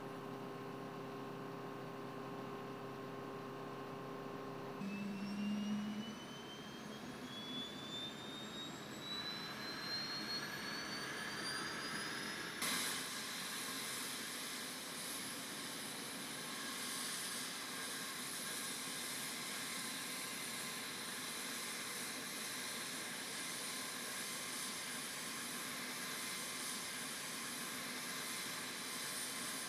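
C-130H Hercules Allison T56 turboprop engine starting. A steady hum gives way about five seconds in to a turbine whine that rises in pitch for several seconds as the engine spools up. About twelve seconds in, it cuts abruptly to a steady rushing engine noise with a high whine, the engines running on the ground.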